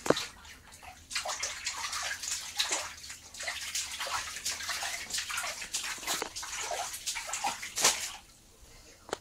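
Water splashing and sloshing in a bathtub of soaking laundry as a small child's hands work the clothes. The splashes come irregularly and die down near the end, after a sharp knock right at the start.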